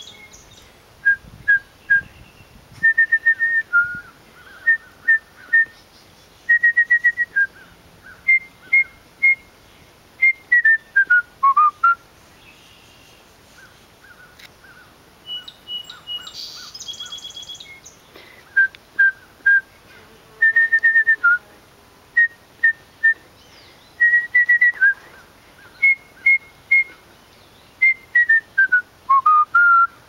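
A person whistling a tune of short clear notes in duet with a wild bird: two whistled phrases, each ending in a run of notes sliding downward. Between them, about halfway through, the bird answers with a brief, higher-pitched call of a few notes.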